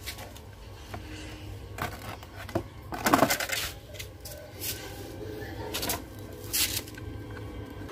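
Scattered knocks and clinks of window air-conditioner parts being handled: the plastic fan blade just pulled off the fan motor, and the motor on its bracket. The loudest knock comes about three seconds in, over a low steady hum.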